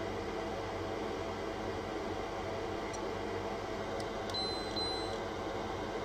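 Steady fan hum with a low electrical drone. About four and a half seconds in come two short, high-pitched beeps.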